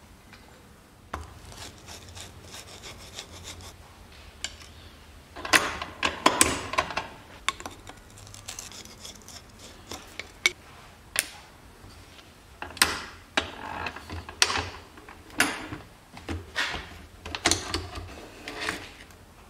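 Metal parts and hand tools handled on a Vespa GS150 engine casing: irregular clicks, scrapes and rubbing, with a run of sharper knocks and clinks from about five seconds in as the gear selector mechanism is worked loose and taken off the casing.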